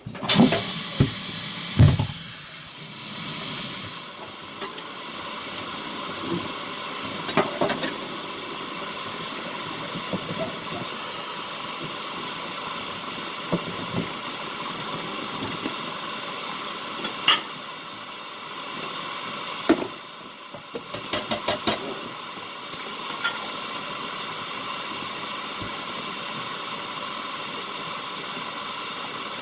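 Beaten eggs sizzling in melted butter in a hot skillet, loudest for the first few seconds, then a steady sizzle, with a few light knocks and clicks along the way.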